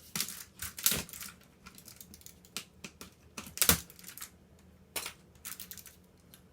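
Plastic clicks and clacks from a 1990s NTC computer keyboard being taken apart by hand. There are about ten irregular sharp clicks, the loudest a little past the middle.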